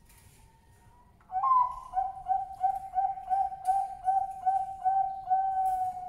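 Male Bangkok perkutut (zebra dove) cooing. About a second in comes a strong opening note, then a quick run of about ten short, even coos at roughly three a second, ending on a longer held coo.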